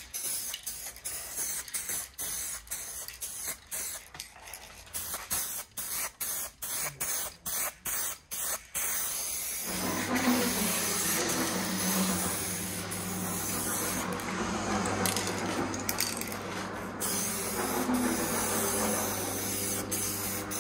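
Two-component polyurethane aerosol spray can hissing as paint goes onto a car roof: on and off in short spurts for the first half, then a steady unbroken spray from about halfway through.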